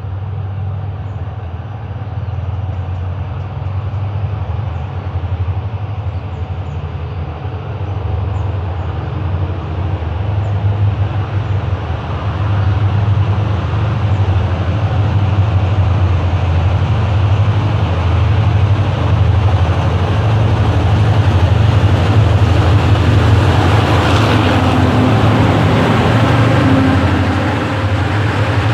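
Diesel locomotive hauling a passenger train on the State Railway of Thailand, approaching with a steady low engine drone that grows steadily louder. Near the end the passenger carriages roll past close by with a rising rumble of wheels on the rails.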